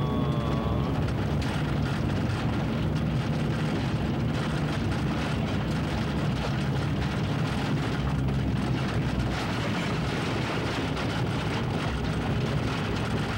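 Car engine running and tyre noise heard from inside the cabin while driving on a rough road, a steady hum and rumble.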